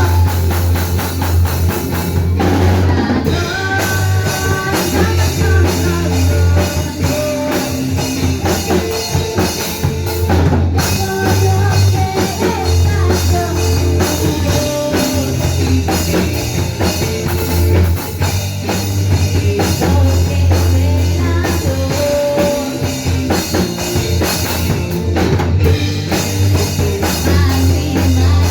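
Rock band playing live, with a full drum kit driving a steady beat under bass and held melodic notes.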